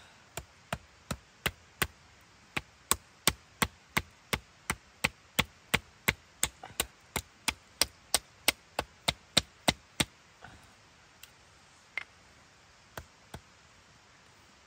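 Rapid chopping: sharp, evenly spaced strikes about three a second for some ten seconds, then a few scattered knocks near the end.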